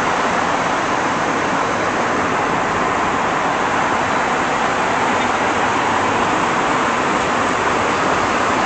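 Steady, even cabin noise of an airliner in flight: the constant rush of engines and airflow.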